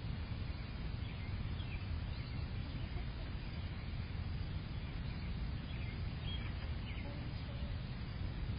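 Faint, short bird chirps over a steady low rumble of background noise picked up by an outdoor security camera's microphone.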